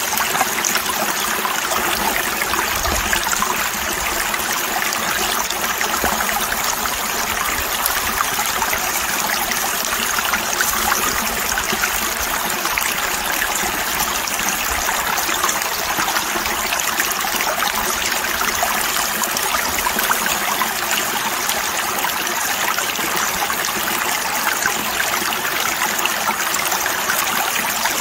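Water rushing steadily and turbulently through a metal sluice box and over its riffles, a flow that the prospector judges way too heavy, blowing the fine material out the end.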